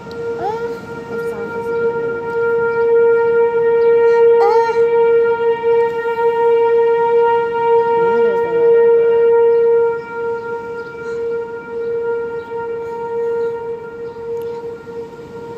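Outdoor tornado warning siren sounding one steady, held tone. It swells and then drops back somewhat about ten seconds in. A few short rising sweeps break in over it.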